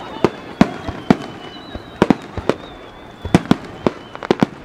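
Star mine fireworks: a rapid-fire barrage of aerial shells bursting, about a dozen sharp bangs at uneven spacing, some in quick pairs. A faint, thin high whistle runs under the bangs.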